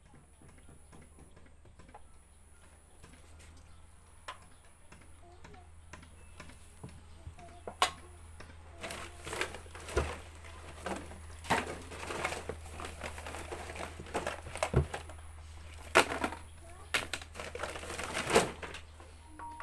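Plastic bottles and containers being pulled out of a woven plastic sack and sorted by hand: a quick, irregular run of sharp clicks, clatters and crinkling rustles. It is sparse at first and grows busy about eight seconds in, over a steady low hum.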